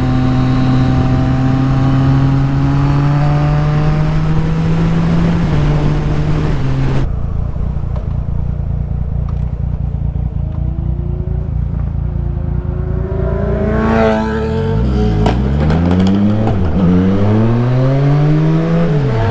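Sport motorcycle engine running at a steady pitch, then revved up and down several times in quick rising and falling sweeps during the last third.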